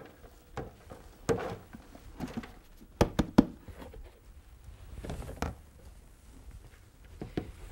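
Shredded cabbage rustling as it is tipped out of a plastic container into a large plastic bin, with a quick run of sharp plastic knocks about three seconds in as the container is handled, then more rustling and light clatter.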